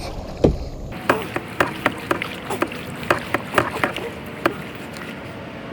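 Kayak being paddled through pond water covered in floating green plants: a steady water swish with many irregular small clicks and taps.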